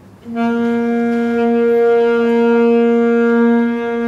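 A saxophone sounding one long, steady held note that starts about a third of a second in.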